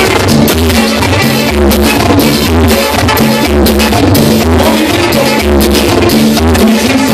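Live cumbia band playing loud: a button accordion over congas, a drum kit and a steady bass beat, about two beats a second.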